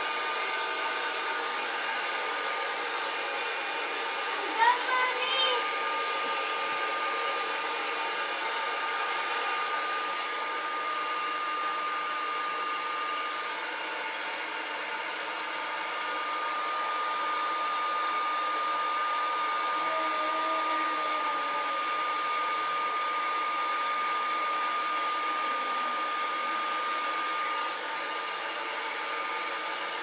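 Handheld hair dryer running steadily: a rush of air with a steady whine over it. About five seconds in comes one short, high-pitched squeal that rises in pitch.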